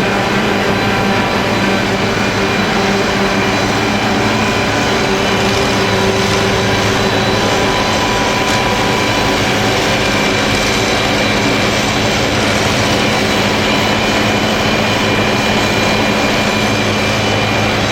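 Forage-harvesting machinery for silage maize running steadily under load: a heavy engine drone with several steady whining tones from the driven machinery on top.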